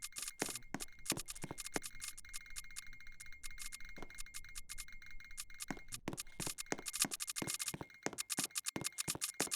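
Fire alarm strobes flashing out of step with each other: a dense, irregular run of sharp clicks over a faint steady high whine.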